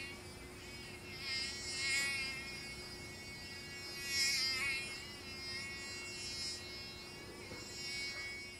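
Faint, high buzzing drone that wavers slightly in pitch and swells twice, over a steady lower hum.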